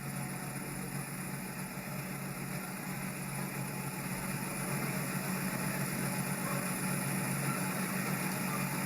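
An engine running steadily: a low, even hum with a hiss over it, slowly getting louder.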